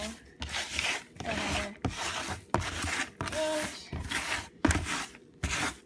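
Hay and wood-shaving litter rustling and scraping in a plastic litter box, in a run of short strokes as it is pushed about by hand.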